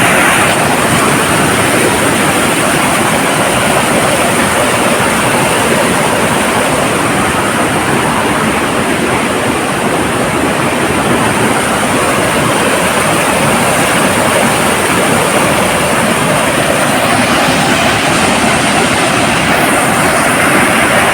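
Waterfall, the water rushing down close by as a loud, steady, even roar.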